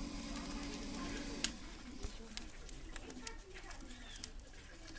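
Fish curry gravy boiling in a kadai over a wood fire, with small plops as fried rohu fish pieces are dropped in by hand, and scattered sharp crackles, the loudest about a second and a half in.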